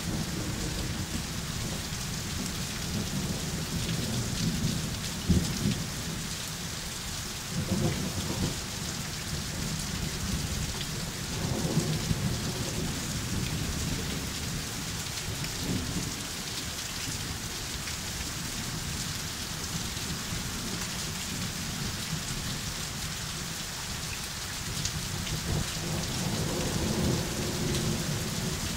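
Heavy rain pouring steadily in a thunderstorm, a dense even hiss, with deeper low rumbles swelling up a few times.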